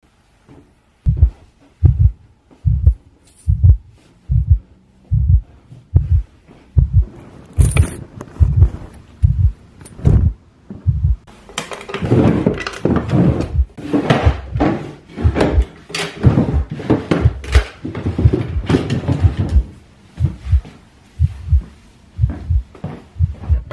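Heartbeat sound effect: deep, even thumps at a little over one a second. From about halfway through, rummaging through clothes and drawers is heard over the beat.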